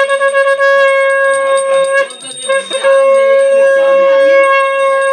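Conch shell (shankh) blown in long steady notes: one blast held until about two seconds in, a short puff after a brief break, then a second long blast. A bell rings rapidly at the start, with voices faint underneath.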